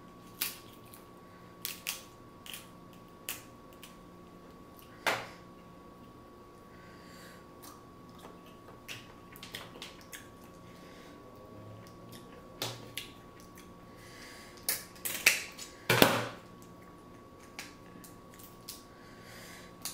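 Crab shells cracking and snapping as crab legs are broken open by hand, in scattered sharp cracks with longer quiet gaps between them, the loudest a cluster about fifteen to sixteen seconds in.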